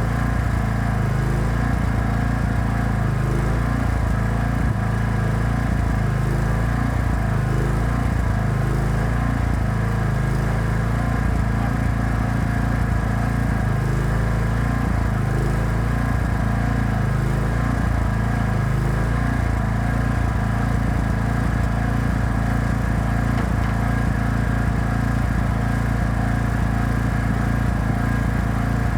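Engine-driven welding generator running steadily, a constant engine hum with no change in speed.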